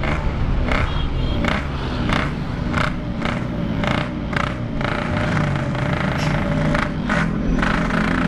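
Yamaha RX-King's single-cylinder two-stroke engine running while under way, with short noisy bursts recurring about twice a second over the steady engine sound.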